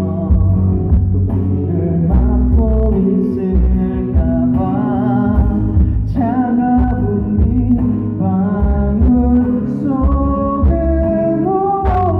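A song performed live: a singer holds and bends a melody over an instrumental backing track with bass and guitar.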